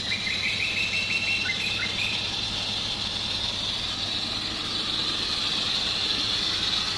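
Steady hiss of water being jetted through a pipe into a diesel particulate filter to flush out soot. In the first two seconds a quick run of about eight short, high squeaky chirps sounds over it.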